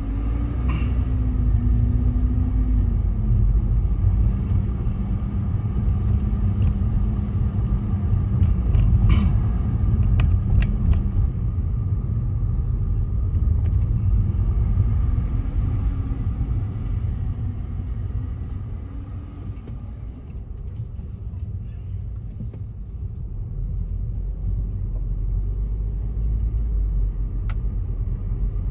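Steady low road and engine rumble inside a moving car's cabin, with a faint hum that shifts in pitch as the car changes speed. It eases off a little past the middle, then builds again.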